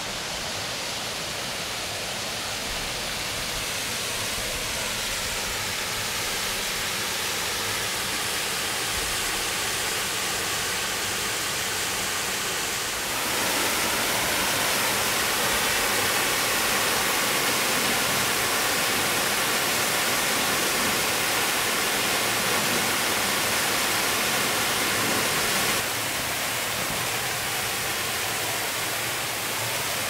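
Steady roar of water pouring over the North Fork Cosumnes River falls. It gets abruptly louder about halfway through and drops back down near the end.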